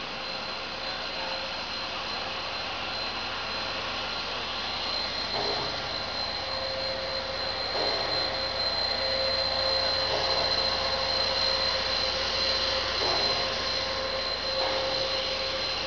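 Steady machine noise of an HDPE pipe extrusion line running, with a constant high whine. A second, lower tone joins about six seconds in, and the noise grows slightly louder soon after.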